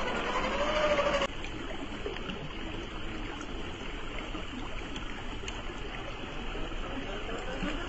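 Creek water flowing steadily over rocks. For the first second, the Traxxas TRX-4 crawler's electric motor and gears whine and rise in pitch, then cut off suddenly. A faint motor whine returns near the end.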